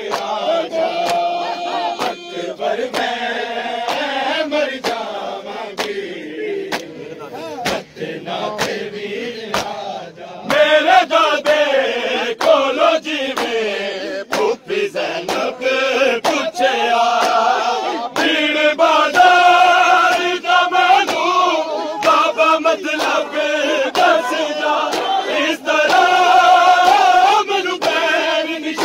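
A large crowd of men chanting a mourning noha together, with regular sharp slaps of hands striking chests (matam) keeping the beat. The chanting grows louder about ten seconds in.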